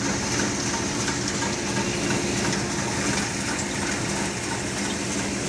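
Lentil threshing machine running with a steady mechanical hum, while a stream of threshed lentil seed pours from its metal outlet chute onto the pile with a continuous rushing hiss.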